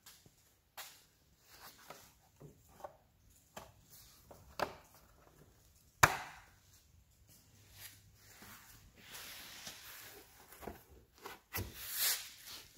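Irregular knocks and clatter of handled objects, with one sharp loud knock about six seconds in and a longer hissing rustle near the end; no engine is running.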